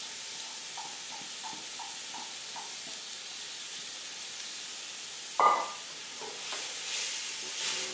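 Browned ground meat with freshly added onions and garlic sizzling in a hot pot, with stirring. One sharp clank with a brief ring about five and a half seconds in, and the sizzle swells louder near the end.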